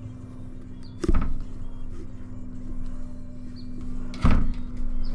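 Two thuds about three seconds apart, over a steady low hum. They are typical of a knife jabbing into a pumpkin or pumpkins being knocked against the table during carving.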